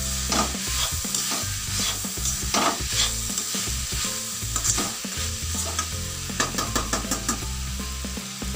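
Chopped vegetables sizzling in hot oil in a metal kadai while a metal spatula stirs them, scraping against the pan in repeated short strokes. The stirring stops near the end while the sizzle goes on.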